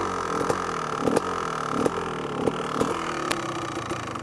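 Kawasaki KX250 dirt bike engine running while riding a trail, its pitch rising and falling as the throttle opens and closes, with repeated knocks every half second or so as the bike goes over whoops.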